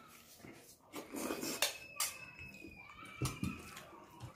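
A metal spoon clinking against a stainless steel bowl, a few sharp taps, between noisy sips and chewing of soup.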